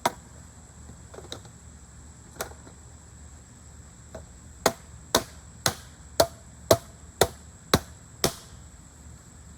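A hammer driving the stacking stakes of a raised garden bed into the ground: a few scattered strikes, then a run of eight steady blows about two a second.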